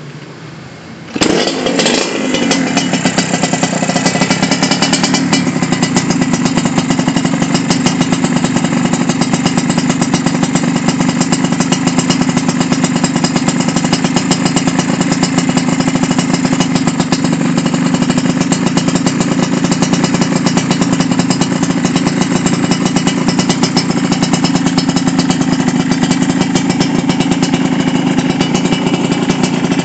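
Yamaha RX-King's two-stroke single-cylinder engine, breathing through an aftermarket under-belly expansion-chamber exhaust (knalpot kolong), starts about a second in. It then runs steadily at idle with fast, even exhaust pulses.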